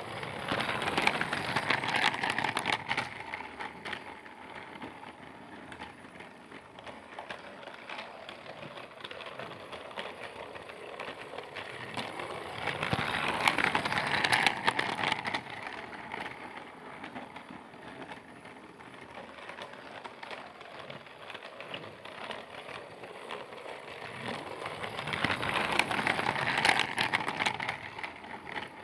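Battery-powered Percy toy train running around a track loop with a steady clicking rattle of its motor and wheels. It swells louder three times, about every twelve seconds, as it passes close by.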